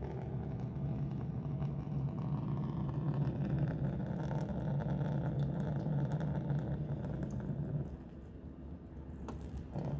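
A stream of urine splashing steadily onto a frozen car door handle to thaw the ice, stopping about eight seconds in.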